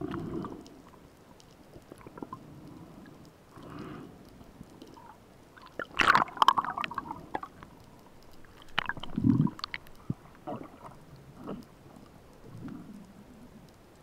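Underwater sound picked up by a mask-mounted action camera: low muffled rumbles and gurgles of water moving around the camera, with a burst of crackling clicks about six seconds in.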